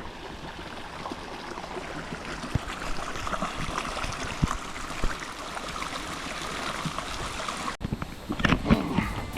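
Spring water flowing steadily over rocks, a continuous rushing and gurgling. It cuts off abruptly near the end, and a louder, different sound begins.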